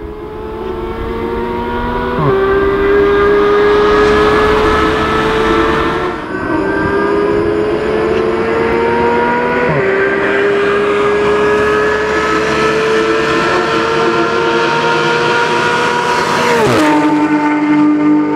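Porsche 991 GT3's naturally aspirated flat-six with an iPE Innotech race exhaust accelerating hard through the PDK gears. The pitch climbs and drops at quick upshifts about two, six and ten seconds in, then climbs slowly in a higher gear. Near the end the revs fall sharply and settle on a steady lower note.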